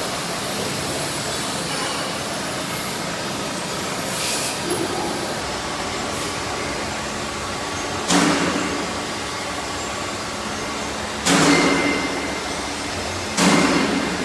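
Steady factory machinery noise, broken three times by sudden loud bursts that each fade over about a second.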